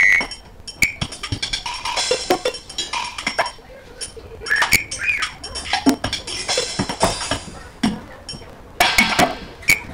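Sparse, fragmented percussive music: irregular clicks and knocks scattered at uneven intervals, with a few short pitched blips.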